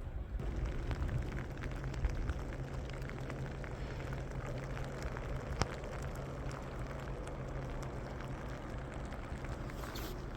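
Heavy wet snow and ice pellets pattering steadily, a dense run of fine ticks over a continuous low wind rumble, with one sharper tick about five and a half seconds in.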